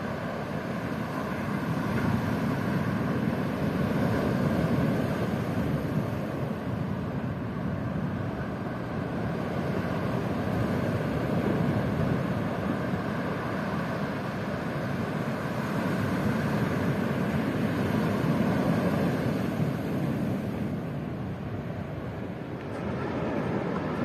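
A steady outdoor rushing noise that swells and eases slowly, every six or seven seconds.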